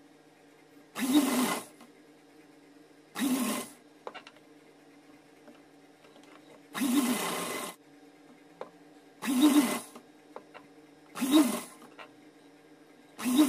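Domestic sewing machine stitching in about six short runs, each under a second, with pauses between them.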